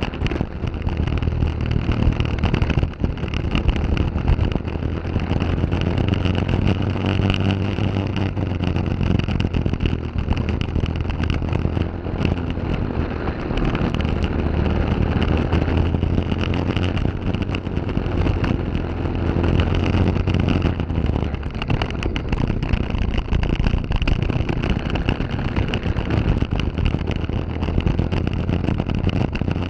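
Briggs & Stratton LO206 single-cylinder four-stroke kart engine running under race load, heard onboard, its note rising and falling again and again as the driver goes on and off the throttle through the corners.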